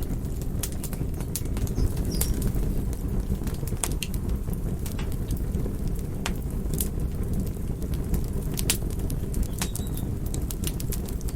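Wood fire in a fireplace crackling, with irregular sharp pops over a steady low roar of the flames.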